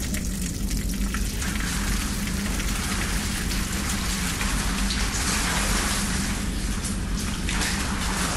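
Steady rush of liquid pouring and splashing, with a low steady hum underneath.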